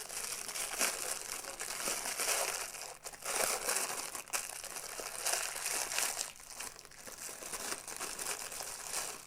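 Packaging crinkling and rustling as it is handled and unwrapped, an irregular crackle throughout.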